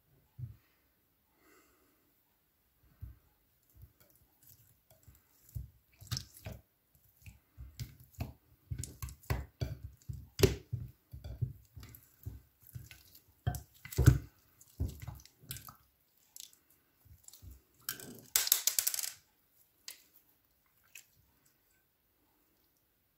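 Hands squishing and kneading glossy slime in a glass dish: many short wet squelches and sticky crackling pops, sparse at first and thickest in the middle, with a short dense burst of crackling near the end.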